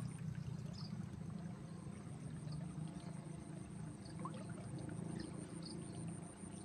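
Muddy irrigation-ditch water flowing and trickling past the bank: a steady, low rushing.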